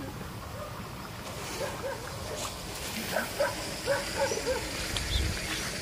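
Faint, short yelping calls from an animal, a series of them starting about a second and a half in and coming quicker and closer together toward the end, over a low outdoor background.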